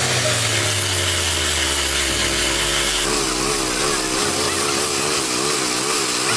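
Petrol-engined rail profile grinder running, its abrasive wheel grinding the welded joint on a steel rail flush with a steady rasping hiss over a wavering engine hum.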